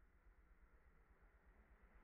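Near silence: a faint, steady background hiss with a low rumble beneath.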